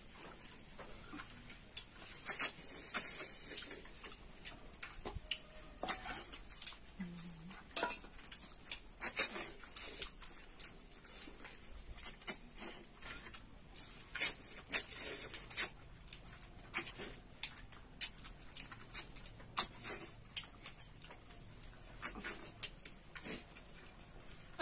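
Eating sounds of people eating freshwater snails and rice by hand: irregular short clicks and mouth smacks, with occasional light clinks against plates and steel bowls.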